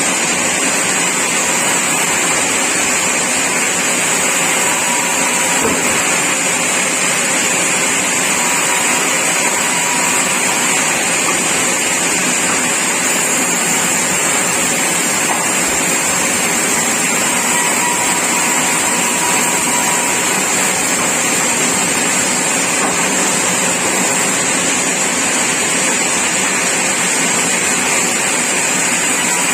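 Sawmill machinery running steadily, a loud continuous mechanical noise with a high-pitched hiss and no breaks.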